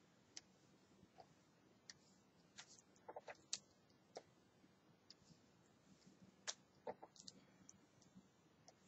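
Faint, scattered clicks of a stylus nib touching down and tapping on the glass screen of a Wacom Cintiq 21UX pen display while ink strokes are drawn, with a small cluster about three seconds in and another a little before seven seconds.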